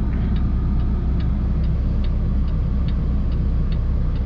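Semi-truck diesel engine running steadily, heard inside the cab, with a turn-signal indicator ticking evenly about two and a half times a second.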